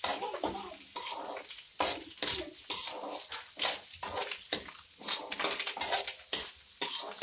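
Pork pieces sizzling in a hot aluminium wok while a metal ladle stirs them, scraping and clinking against the pan in irregular strokes.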